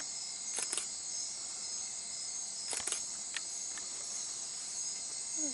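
Night chorus of rainforest insects such as crickets and katydids, a steady high-pitched trilling, with a few soft clicks about half a second in and again around three seconds in.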